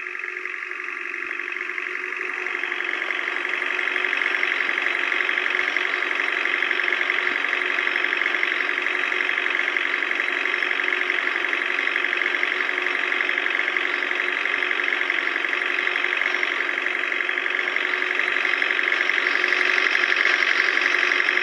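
Vehicle engine running hard at steady revs, growing louder over the first few seconds and then holding.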